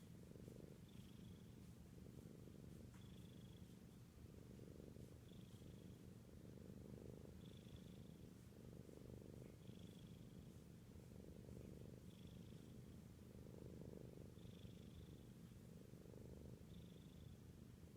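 Cat purring steadily, the purr pulsing about every two seconds, with a faint short high squeak at about the same spacing.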